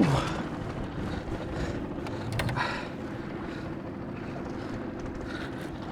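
Sailboat's engine idling steadily in neutral, with wind in the background.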